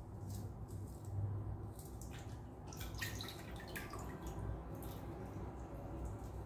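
Small wet squelches and drips as fingers pull the guts from a small fish in a basin of water, with a cluster of quick wet clicks about three seconds in. A steady low hum runs underneath.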